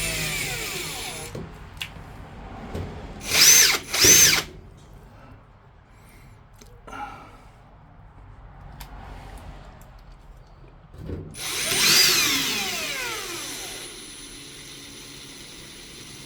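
Power drill driving screws in short runs: a run that stops about a second in, two quick bursts around three and four seconds in, and a longer one from about eleven seconds, each speeding up and then winding down in pitch.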